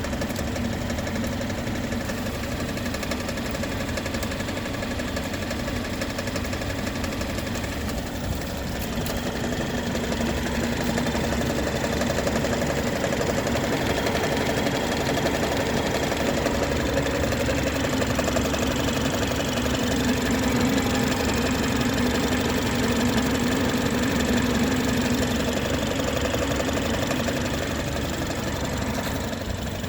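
BMW B48 turbocharged inline-four engine running steadily with a knocking noise, the fault the owner is recording. It grows a little louder about ten seconds in.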